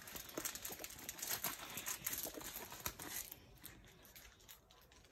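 Plastic packaging crinkling and crackling as a tight wrapping is worked open by hand, a dense run of small crackles for about three seconds that then dies down to faint rustles.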